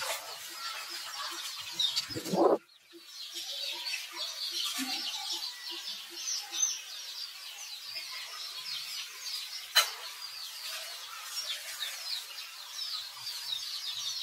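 Forest ambience: many birds chirping in quick high notes throughout, with a low note repeating about four times a second from about three to six seconds in. About two seconds in comes the loudest sound, a short squeal, and then everything drops out for a moment.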